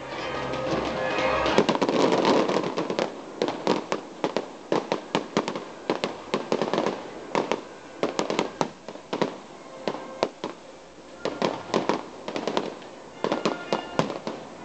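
Fireworks going off: a dense swell of crackling bursts about two seconds in, then a rapid run of sharp bangs and crackles in clusters, several a second.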